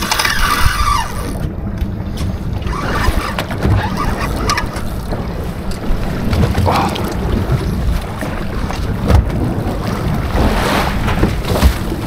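A boat's engine running steadily with a low drone, with wind buffeting the microphone and water noise around the hull.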